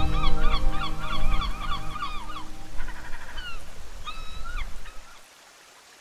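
A gull calling, a quick run of repeated cries at about four a second, then a few slower single calls. The calls stop and the sound fades out about five seconds in.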